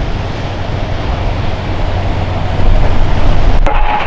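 Boat engines running on the water, mixed with surf and wind buffeting the microphone; the sound grows louder about two and a half seconds in.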